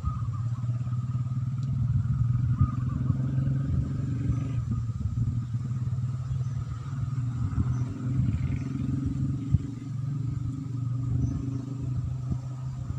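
A steady low engine hum that keeps running without change.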